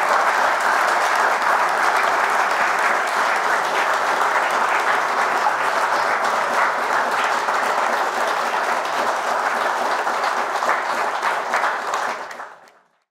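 An audience applauding, a steady patter of many hands clapping, fading out about twelve seconds in.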